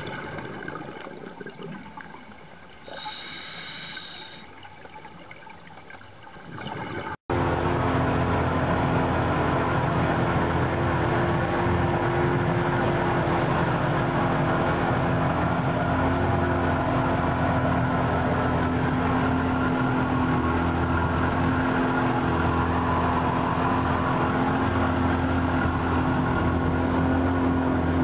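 About seven seconds of quieter underwater sound, then, after a sudden cut, a boat's motor running steadily at cruising speed with a constant drone and water noise.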